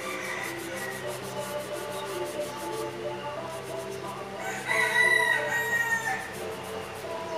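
Background music plays throughout. About five seconds in, a rooster crows once: a long call of about a second and a half, the loudest sound here, holding its pitch and then dropping slightly at the end.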